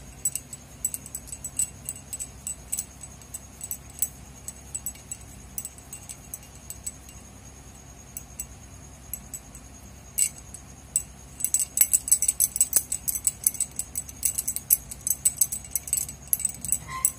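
Bangles on the wrist clinking and jingling as hands stuff and shape a ball of dough, a run of light clicks that grows busier and louder about eleven seconds in.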